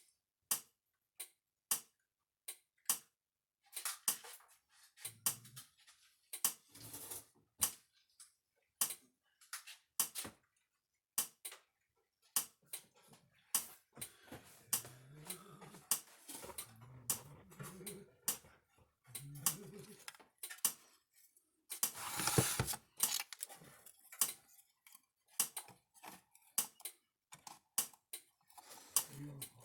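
Sharp clicks ticking at a steady pace, about one or two a second, over the scraping and clinking of nuts, bolts and small parts being handled and fitted, with one louder rattle about two-thirds of the way through.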